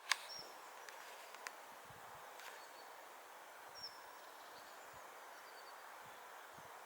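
Faint outdoor ambience with a steady hiss, broken by a few brief high chirps from small birds. A sharp click comes right at the start, with a few lighter ticks in the first couple of seconds.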